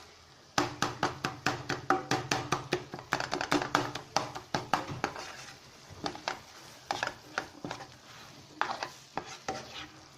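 A spoon or spatula knocking and scraping against a pan while cooked beef brain is mashed in it: quick runs of taps through the first few seconds, sparser in the middle, and another short run near the end.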